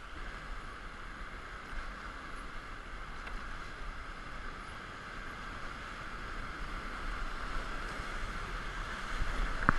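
Steady rush of the Nenana River's whitewater rapids around an inflatable raft, with a sharp click near the end.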